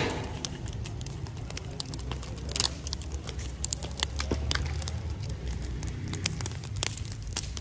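Long open wood fire crackling, with many irregular sharp pops over a low steady rumble.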